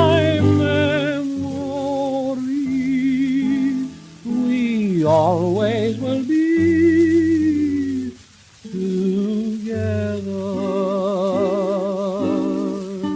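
Background music from a slow ballad: a melody line holding wavering notes over sustained chords.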